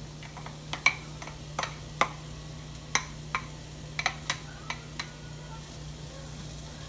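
Slotted plastic spatula knocking and scraping diced onion out of a glass bowl into a non-stick frying pan, about nine sharp taps in the first five seconds. Under it, faint sizzling as the onion goes into the hot olive oil.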